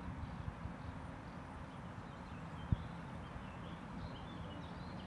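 Quiet outdoor ambience of a city park: a steady low rumble, with faint bird chirps from about halfway through. A single dull thump sounds near the middle.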